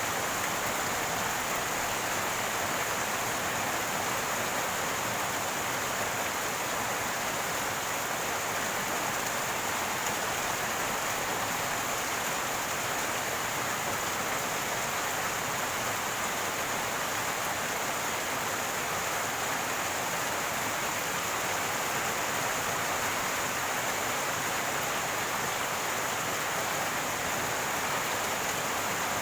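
Rainwater running and gurgling in a steady, even rush that does not change.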